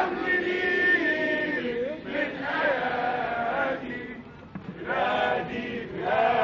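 A crowd chanting together in continuous phrases, dropping off briefly about four seconds in.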